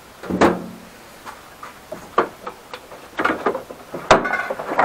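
A series of irregular knocks and clatters of hard objects being handled. The loudest comes about half a second in and rings briefly; the rest are scattered and sharp.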